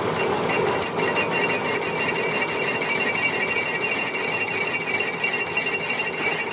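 Metal lathe cutting a workpiece: a steady high-pitched ringing with a fast, regular ticking.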